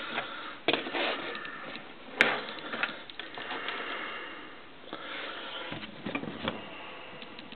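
Plastic Transformers toy figures being set down and shifted on a wooden desktop: a few sharp clicks and knocks, the loudest about two seconds in, with light handling rustle between them.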